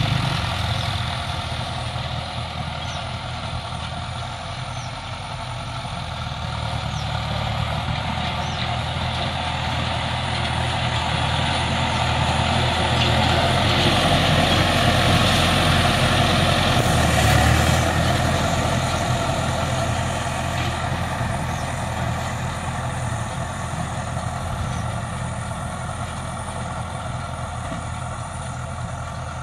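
Tractor engine running steadily while working a paddy-field bund, growing louder to a peak a little past halfway, then easing off.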